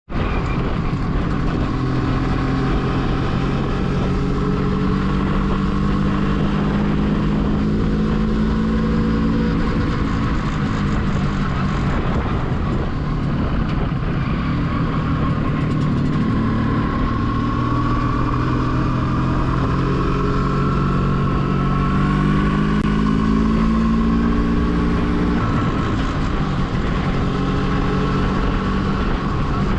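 MZ ETZ 250 motorcycle's single-cylinder two-stroke engine running, its pitch climbing slowly and dropping back a few times.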